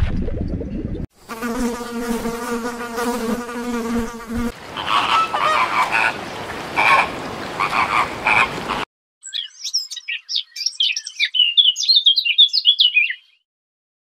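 A string of separate animal sounds. A steady droning hum comes first, then a flock of flamingos honking in repeated calls, then a run of quick high chirps that stops shortly before the end.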